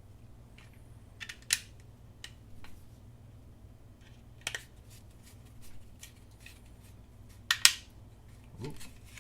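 Sharp plastic clicks and taps from handling a small handheld multimeter during reassembly, in a few separate clusters with the loudest about one and a half seconds in and again near the end.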